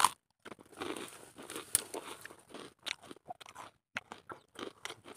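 Dry twigs and brush crunching and crackling in short, irregular snaps, as someone moves through a tangled thicket of dry stems.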